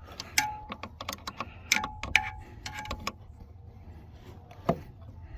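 Hand wrenches clinking and clicking against a battery cable terminal bolt as it is tightened: a run of sharp metallic clicks, some ringing briefly, over the first three seconds, then one more a little before the end.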